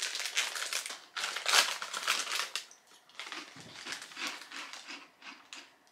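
A foil-lined potato chip bag being pulled open and crinkled, in loud irregular crackles, followed by softer crunching as the chips are chewed.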